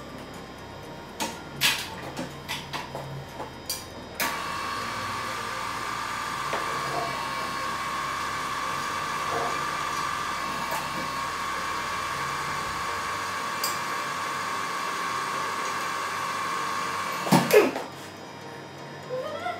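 Drill press starting about four seconds in and running with a steady high whine as it drills into a flywheel, removing metal at the heavy spot found in balancing. A few metal knocks come before it, and a short, loud clatter as it stops near the end.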